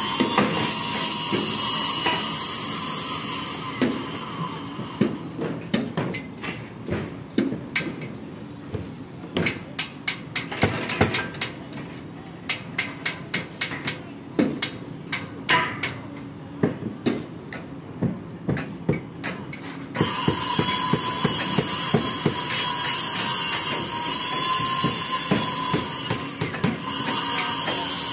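Construction-site hammering: many sharp hammer blows and metal knocks on steel scaffolding and formwork, thickest through the middle of the stretch. Steady machine noise with a faint whine runs under the blows at the start and returns abruptly about two-thirds of the way in.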